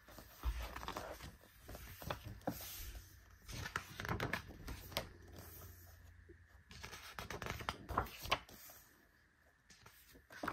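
Paper and plastic rustling and crinkling as album packaging and inclusions are handled, in irregular bursts with scattered clicks. It goes quiet shortly before the end.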